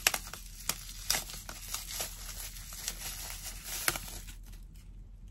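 Bubble wrap being pulled open and unwrapped by hand: irregular crinkling and crackling with sharp clicks, easing off about four seconds in.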